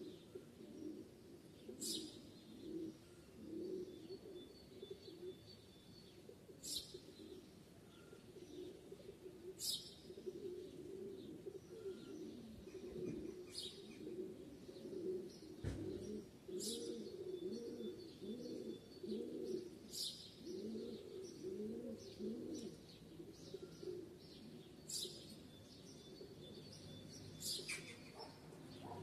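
Doves cooing in repeated low phrases, with short high bird chirps every couple of seconds. There is a single low thump about halfway through.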